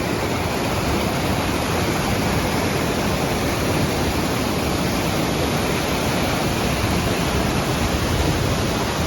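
Steady rush of a large waterfall, Duduma falls, a dense, unbroken noise of falling water.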